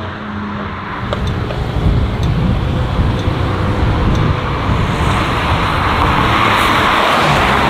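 Cars accelerating away with a deep exhaust rumble and a few sharp pops. Near the end a BMW 1 Series hatchback approaches and drives close past, its engine and tyre noise swelling.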